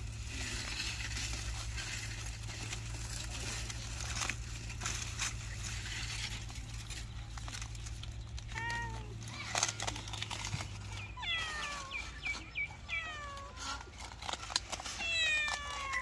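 Aluminium foil crinkling and rustling as a foil-wrapped parcel of sand-baked food is pulled open by hand. From about nine seconds in come high, falling animal cries, repeated in quick runs near the end.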